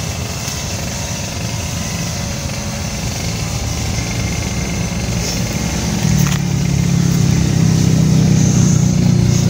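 A motor vehicle engine running steadily, growing louder about six seconds in, with one sharp click just after.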